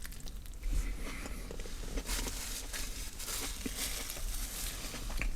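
A bite of a grilled chicken sandwich being chewed close to the microphone, with small scattered crackles and crinkles, likely from its wrapper.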